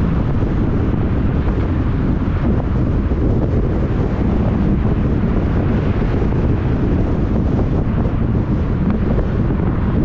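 Wind buffeting a car-mounted action camera's microphone over the low rumble of the car driving along the road, a steady deep noise throughout.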